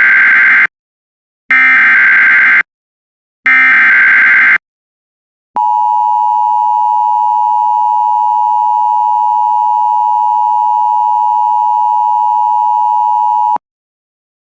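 Emergency Alert System header: three roughly one-second bursts of warbling SAME digital data tones, then the EAS attention signal, a steady two-tone electronic beep held about eight seconds that cuts off sharply. This is the signal announcing an emergency bulletin, here a severe thunderstorm warning.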